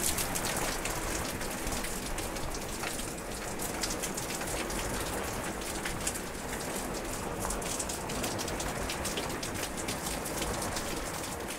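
Steady rain falling on a grassy field and tree foliage: a dense, even hiss dotted with many separate drop ticks.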